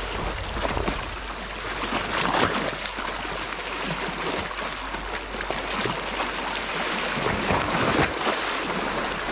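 Sea waves washing against the shore: a steady rushing of water that swells now and then.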